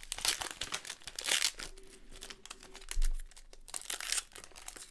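Foil wrapper of a 1997 Bowman's Best basketball card pack crinkling in irregular bursts as it is peeled open and the cards are slid out. There is a dull thump about three seconds in.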